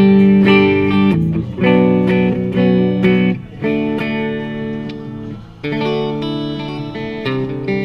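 2014 Gibson Les Paul Goldtop electric guitar played clean through a tube amp. Chords are strummed and left to ring, changing every second or two with brief gaps between them.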